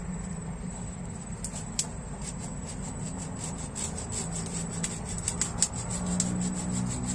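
Dry, tangled thicket branches rubbing and cracking as they are worked by hand, with scattered irregular sharp snaps; the loudest snap comes about five and a half seconds in.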